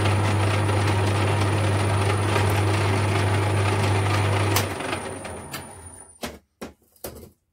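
Metal lathe running with a 12.1 mm drill bit boring through an aluminium collar held in the chuck. A little under five seconds in the lathe is switched off and winds down, followed by a few knocks near the end.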